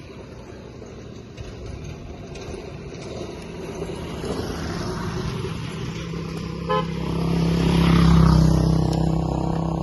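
Street traffic: a motor vehicle's engine grows louder as it passes close, loudest about eight seconds in, with a brief horn toot just before.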